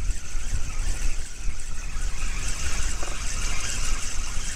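Wind buffeting the microphone in a steady low rumble, over the faint whirr of a spinning reel being wound in while a hooked crucian carp is played on a bent rod.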